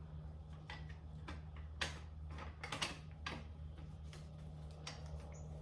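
Scattered light clicks and knocks of metal parts on a motorcycle tire changer being handled and fitted, over a steady low electrical hum.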